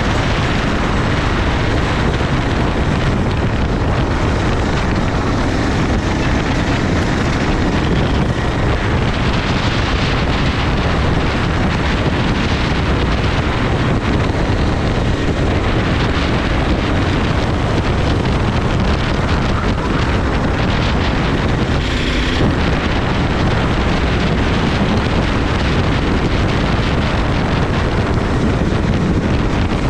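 Racing kart's engine running at speed on track, mixed with heavy wind buffeting on the onboard camera's microphone.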